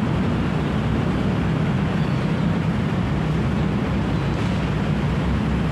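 Steady low mechanical rumble, like a running engine, continuous and unchanging.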